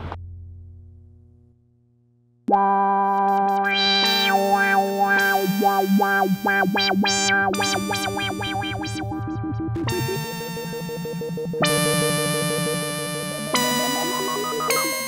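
Synthesizer music. After a low hum fades almost to nothing, a loud synth track cuts in about two and a half seconds in, with held chords under quick runs of notes that shift several times.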